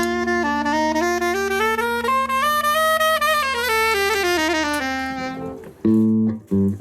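Saxophone, miked for a sound check, playing a run of notes that climbs step by step and then comes back down, over a steady held low note. Near the end, louder short low notes from another instrument take over.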